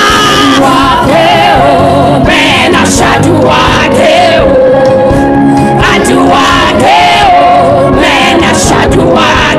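Gospel prayer chorus sung by a congregation, led by a woman's amplified voice, over steady instrumental accompaniment; the singing wavers and holds long notes throughout.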